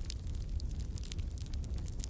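Wood campfire crackling: frequent small sharp pops and snaps, several a second, over a steady low rumble.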